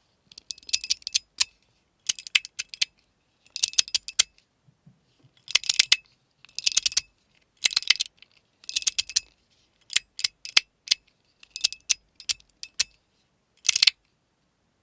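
Schrödinger's Cat fidget slider, a PEI slider that is both magnetic and mechanical with ball-and-spring detents, being slid back and forth by hand. Each slide gives a quick cluster of sharp clicks, about a dozen clusters roughly a second apart.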